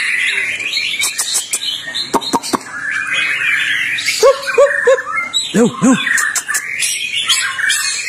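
Caged white-rumped shama singing a rapid, varied song of chirps and whistled phrases, with several sharp clicks early on. Lower, arching notes repeat three times and then twice in the middle, louder than the song.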